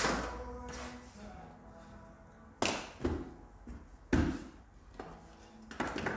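Several sharp clicks and knocks, a second or so apart, from working a self-levelling tile clip system: plastic levelling clips snapped tight with levelling pliers, and the pliers handled on the large-format floor tiles.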